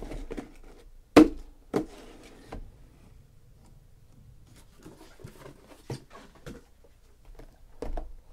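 Cardboard case and shrink-wrapped card boxes being handled on a table: a sharp knock about a second in, a lighter one just after, then scattered faint taps and rustles.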